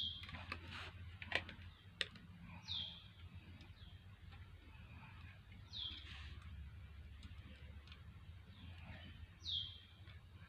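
A bird calling, a short downward-sliding chirp repeated about every three seconds, over a low steady hum, with a few sharp clicks in the first couple of seconds.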